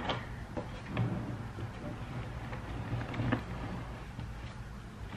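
Wooden art box being opened: its metal latch is worked and the wooden lid lifted, giving a few light knocks and rubs of wood, one near the start, one about a second in and one a little past three seconds.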